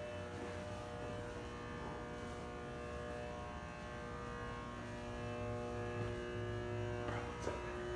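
Music of long, steadily held tones forming a drone over a low hum.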